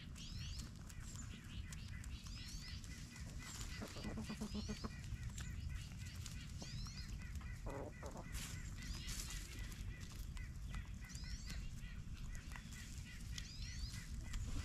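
Backyard chickens giving a few low calls as they scratch and forage, with small wild birds chirping repeatedly over a steady low rumble.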